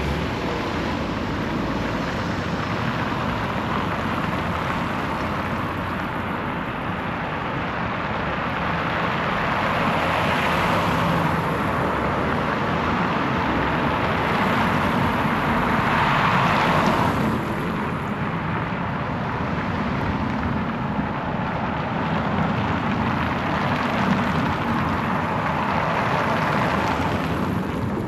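Street traffic noise, with vehicles passing close by twice, about a third of the way in and, more loudly, just past the middle.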